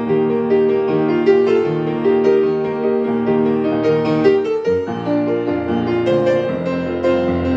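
Grand piano played with both hands: a Broadway show tune, full chords held under a melody line, with a short break and a change of chord a little past halfway.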